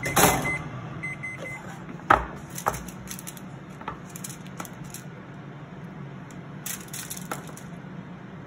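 A metal baking pan of roasted shrimp is set down on a wooden cutting board with a knock about two seconds in. A silicone spatula then scrapes and lifts the shrimp off the foil lining with light clicks and ticks, over a steady low hum. There are a few faint short beeps near the start.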